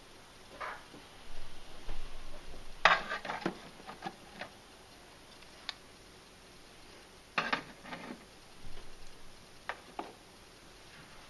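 Small miniature props being handled and set down on a dollhouse shelf: scattered light clicks and clatters, with a louder cluster about three seconds in and another about seven and a half seconds in.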